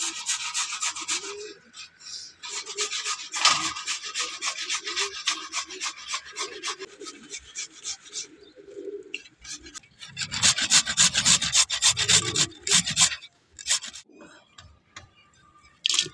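Carrots grated by hand on a flat metal grater: quick rasping strokes in runs lasting several seconds. There is a short break about nine and a half seconds in, and only scattered strokes over the last few seconds.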